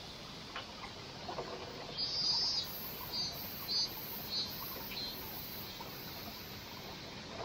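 A wild bird calling in a quick run of about five short high chirps, the first one longest and loudest, over the steady rush of running spring water.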